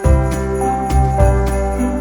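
Christmas-style music with jingle bells shaking in a steady rhythm over sustained notes and a bass line.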